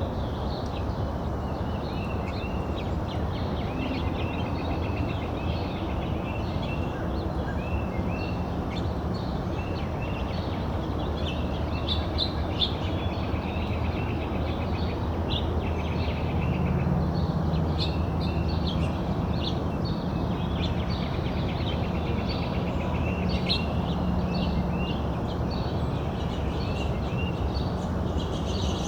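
Several songbirds chirping and trilling at backyard feeders, short calls overlapping throughout, over a steady low background rumble that gets a little louder about two thirds of the way through.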